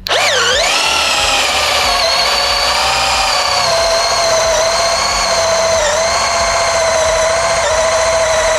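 Electric drill starting up and running steadily with a high whine while boring into wood with an auger wood bit. Its pitch sags briefly as it starts, and it sags slightly twice more later on as the bit takes load.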